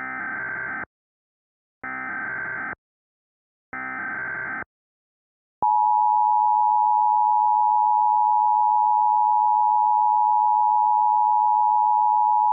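Emergency Alert System SAME header: three short bursts of buzzing digital data tones, each just under a second long. About six seconds in, the two-tone EAS attention signal starts and holds as a loud, steady tone.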